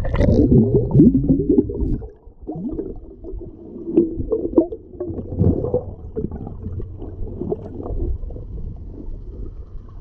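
Muffled underwater sound from a GoPro submerged in its waterproof housing: water gurgling and sloshing around the case, with irregular dull thuds as the swimmer moves.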